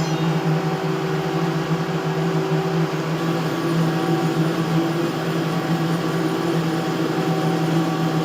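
A heavy machine's engine running steadily, a constant low drone.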